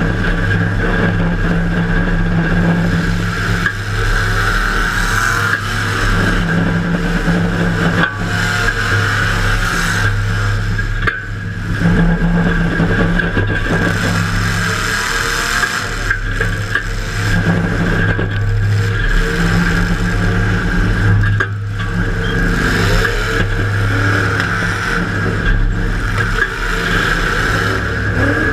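A demolition derby car's engine runs loud and hard, heard from inside the car. Now and then there is a sharp knock or scrape.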